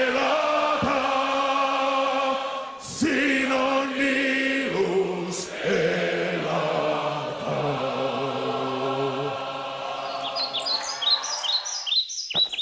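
A choir sings the closing bars of an Estonian song in slow, held chords, and the last long chord fades out shortly before the end. Bird chirps come in over the final two seconds.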